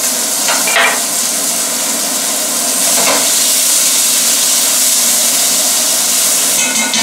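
Sliced onion and garlic sizzling loudly and steadily in margarine in a wok, stirred with a spatula that knocks against the pan about a second in and again near three seconds.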